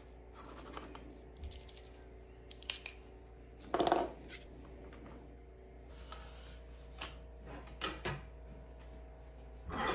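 Light handling noises on a tabletop: paper sheets and small plastic makeup pans and moulds being moved and set down, with a louder rustle of paper about four seconds in.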